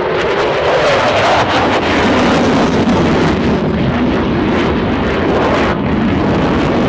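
Eurofighter Typhoon's twin EJ200 jet engines, a loud continuous jet noise with a crackly edge, as the fighter climbs vertically away.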